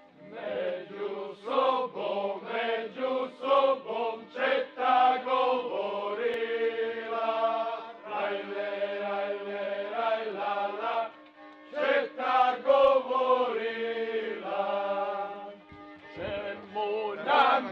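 A group of voices chanting a slow song in unison, drawn-out held notes sung in phrases, with short pauses between phrases.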